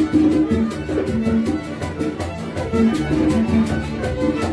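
Live Latin dance music from a small band with guitar: a held, singing melody line over a steady quick beat.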